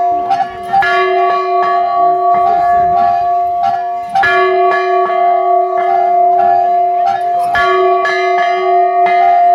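Indian temple bell rung rapidly and continuously, about two to three strokes a second, its ringing tone sustained between strokes. It pauses briefly about four seconds in and is struck hard again.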